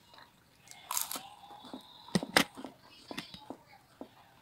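Chewing and biting into pizza crust close to the microphone: a series of short crunching and smacking clicks, the sharpest two about two seconds in.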